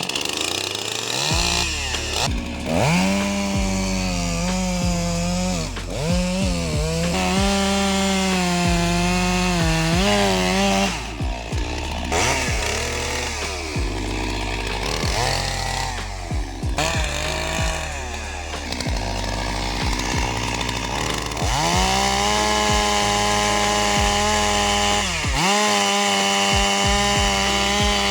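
Two-stroke chainsaw running at high revs and cutting wood, its pitch sagging under load and climbing back again; several times the revs drop away briefly and then pick up.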